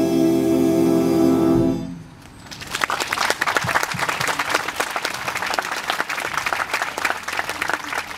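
Jazz big band holding its final chord, which cuts off about two seconds in; audience applause then starts and carries on.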